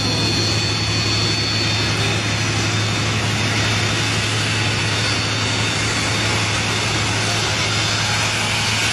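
Beriev Be-200 amphibious jet's turbofan engines running steadily at taxi power as the plane rolls down a slipway toward the water: a steady whine over a low hum.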